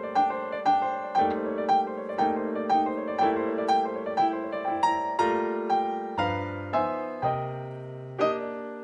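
Solo piano background music: a gentle melody of evenly spaced notes, about two a second, over held chords.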